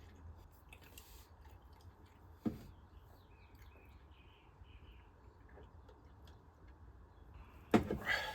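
A sharp knock about two and a half seconds in, then a louder clatter of several knocks near the end, over a quiet low hum, with a few faint chirps between them.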